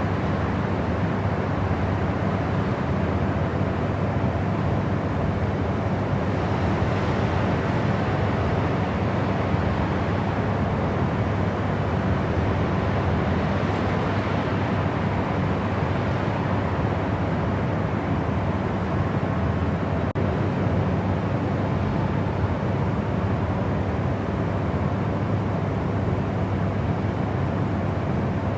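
Steady white noise: a constant, even rush, heaviest in the low end, with no changes in level.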